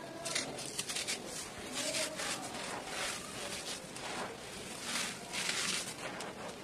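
Dry, gritty red dirt crunching and rustling as bare hands crumble it and scrape it across a slab, in irregular gritty bursts that are densest a little past halfway.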